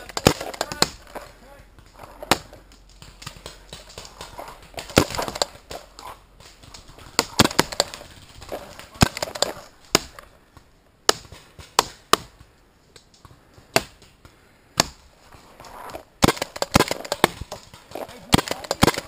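Paintball markers firing: irregular sharp pops, some single shots and some quick strings, with a quieter stretch a little past the middle.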